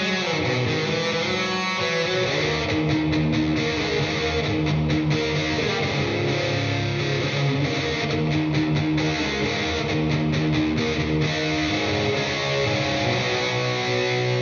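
Intro music led by electric guitar, with strummed chords over a steady bass line.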